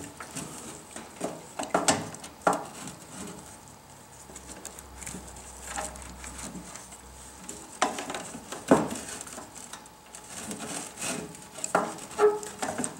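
Scattered knocks, clicks and light rattles of a kerosene bullet heater's sheet-metal electrical cover and its wiring being handled and fitted back in place, with the loudest knocks about two, eight and twelve seconds in.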